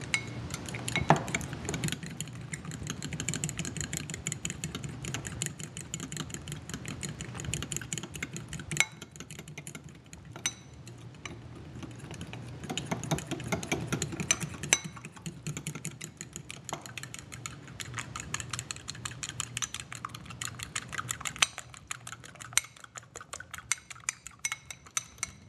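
A metal utensil beating egg white, cornstarch and salt in a glass bowl, clicking rapidly and steadily against the glass with a few louder knocks, whisking the velveting mixture smooth.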